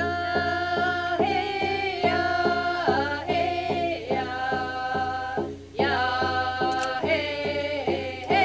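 A group of women singing in unison to a steady beat on a large hand-held frame drum struck with a beater, about three strokes a second. The singing breaks briefly between two phrases about five and a half seconds in.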